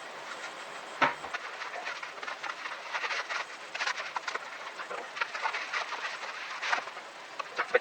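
Hand cutting of a panel for a soundproof box: irregular scraping, rasping strokes, with a sharp knock about a second in.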